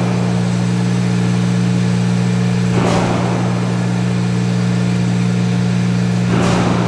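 A steady, loud, low mechanical hum with a short whooshing swell about every three and a half seconds.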